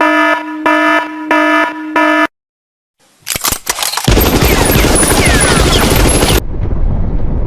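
Electronic sound effects: a beeping tone pulsing about three times a second for two seconds, then a few clicks and, about four seconds in, a loud rushing noise with high whistles, like jet and gunfire effects, that eases to a steadier rush near the end.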